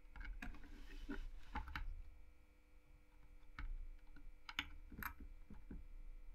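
Faint, scattered clicks and taps of hands handling a low-profile CPU cooler and motherboard during installation, with a short lull in the middle.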